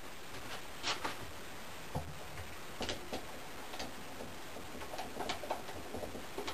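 Irregular light clicks and soft knocks, roughly one or two a second, over a faint steady hiss.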